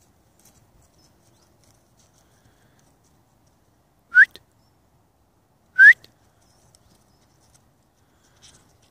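Two short rising whistles, one about four seconds in and the second about a second and a half later: a person whistling.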